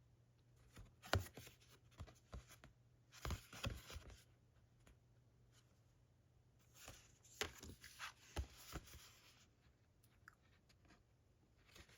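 Faint handling of glossy card: scattered light taps and clicks with short sliding, rustling scrapes as the cards are moved, in one cluster during the first few seconds and another a little past the middle.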